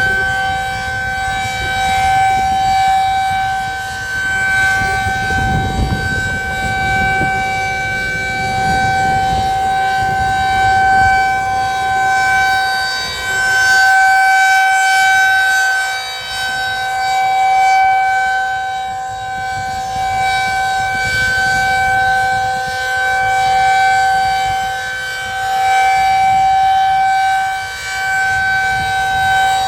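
Federal Signal 2001-SRNB rotating outdoor warning siren sounding a steady tone with no rise or fall in pitch. The tone swells and fades in loudness every few seconds as the rotating head sweeps past.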